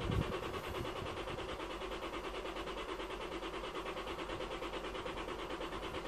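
Lexus IS 220d diesel engine being cranked by its starter motor with an even, repeating rhythm, turning over without firing: the car's crank-no-start fault.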